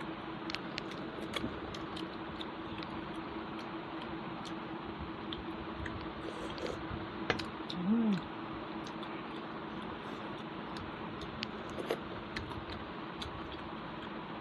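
Eating by hand from a steel plate: scattered light clicks and small metal clinks as fingers mix rice and curry against the steel plate and bowl, with quiet chewing, over a steady background hum. A brief low hum of a voice sounds about eight seconds in.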